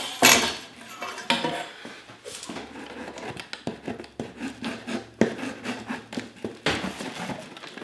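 Tip of a machete scraping and slicing through packing tape on a cardboard box: irregular scratchy strokes with a few sharp taps and clicks on the cardboard.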